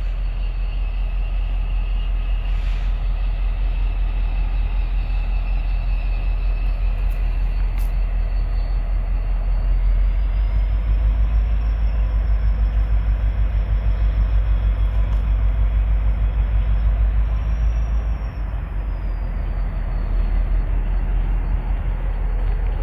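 CSX GP40-2 diesel locomotive moving slowly at the head of a freight train, its engine giving a deep, pulsing rumble that swells about halfway through and eases near the end. A faint high whine rises and falls above it.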